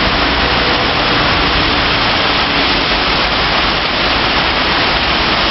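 Torrential rain pouring down in a steady, loud rush.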